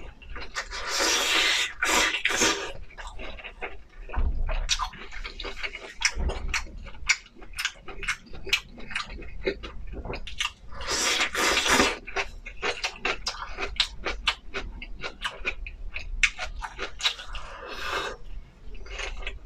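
Close-miked eating of instant noodles: rapid wet chewing clicks throughout, with two longer slurps, one about a second in and one around eleven seconds in.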